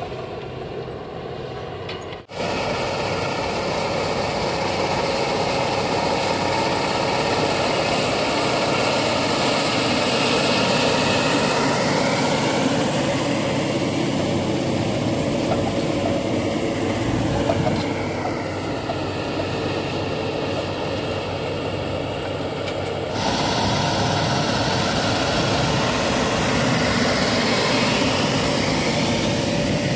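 John Deere quad-track tractor's engine running under load as it pulls a wide seedbed cultivator through the soil, its pitch rising and falling as it passes close by.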